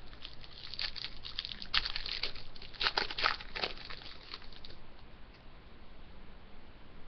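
Hockey card pack wrapper being handled: rapid crinkling and tearing for about five seconds, then quieter.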